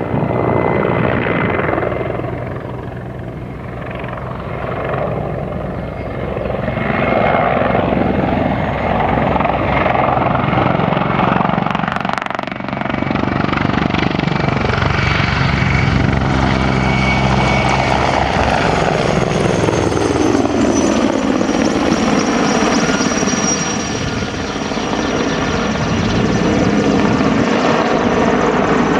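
Mil Mi-24 helicopter flying a display: a loud rotor beat with the whine of its twin turboshaft engines. The pitch sweeps downward about three-quarters of the way through.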